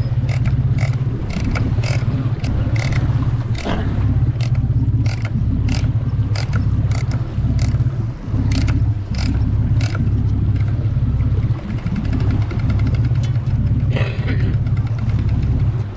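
A fishing boat's engine running steadily with a deep hum, with irregular sharp knocks and slaps scattered over it.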